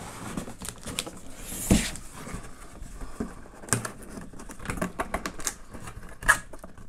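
Cardboard box being handled and stood upright on a table: irregular scraping, rustling and light clicks, with a louder bump about two seconds in and another near the end.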